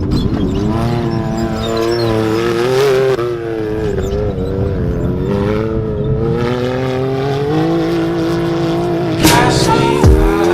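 Can-Am Maverick X3 UTV's turbocharged three-cylinder engine running hard under race load, its pitch rising and falling as the driver accelerates and lifts. There are a couple of sharp knocks near the end.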